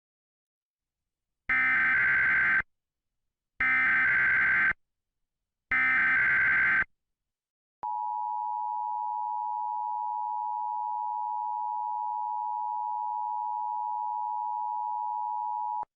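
Emergency Alert System tones: three digital SAME header data bursts, each about a second long and about two seconds apart, followed by the EAS two-tone attention signal, a steady dual tone held for about eight seconds. Together they mark the start of an emergency alert broadcast; the data bursts are the loudest part.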